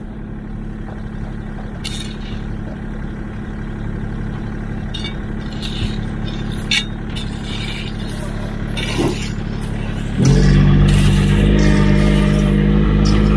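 Diesel engine of heavy construction equipment running steadily, with a few short sharp knocks; near the end it suddenly gets much louder and heavier.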